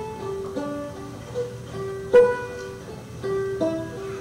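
Live film score on a plucked string instrument: a slow melody of single plucked notes that ring and fade, with a sharper, louder pluck about two seconds in.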